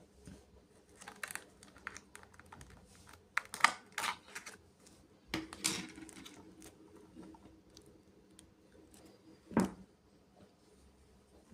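Irregular light clicks, taps and rustles from hands handling a toy and its packaging during unboxing.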